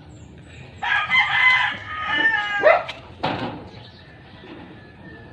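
A rooster crowing once, one long call of about two seconds that falls in pitch at the end. A short noisy burst follows about half a second later.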